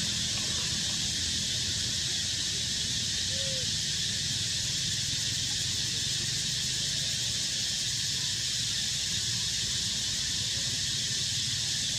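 Steady high hiss over a low rumble, unchanging throughout: outdoor background noise.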